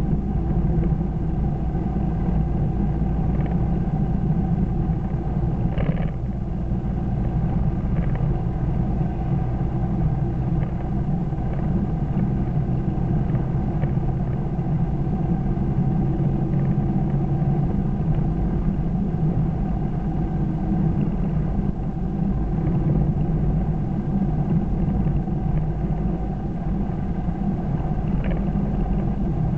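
Steady in-cabin road noise of a car cruising at about 48 mph: a low rumble of tyres and engine with no change in pace, and a faint click about six seconds in.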